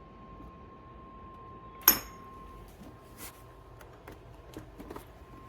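A sharp metallic clink about two seconds in, followed by a few light taps and clicks as espresso-making utensils are handled. A faint steady tone runs underneath.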